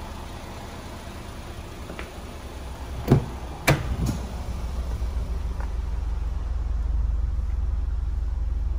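Car door unlatched and swung open: a couple of sharp latch clicks and a thunk about three seconds in. Under it a steady low hum of the idling engine grows louder once the door is open.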